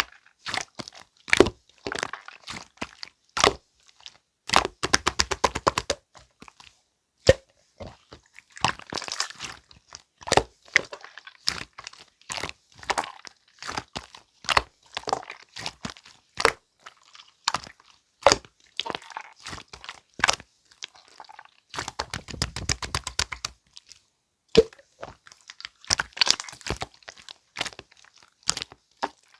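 Clear, jelly-textured slime squished and kneaded by hand, making a stream of sharp wet clicks and pops. Twice it breaks into a fast run of crackling pops, about five seconds in and again past the twenty-second mark.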